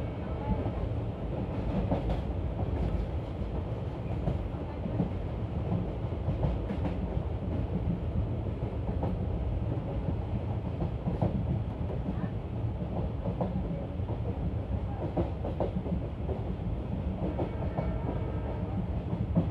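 Express passenger coach running along the track, heard from an open coach window: a steady wheel-on-rail rumble with scattered clicks and clacks from the rails.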